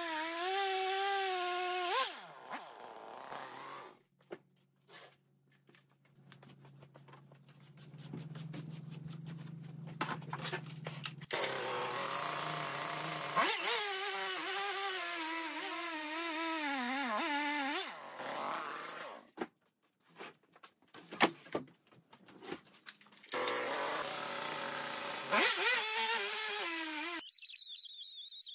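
Gasoline chainsaw ripping lengthwise through an old oak log in a homemade milling jig, the engine at high revs with its pitch wavering under load. The sound comes in several stretches broken by abrupt cut-offs and short near-silent gaps, with a low steady hum in one of the breaks.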